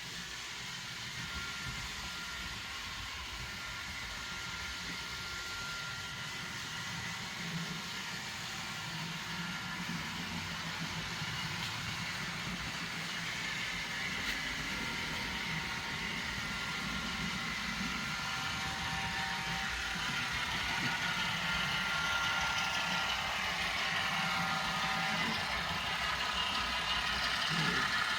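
Model trains running on the layout track: a steady running noise with faint whining tones, growing gradually louder.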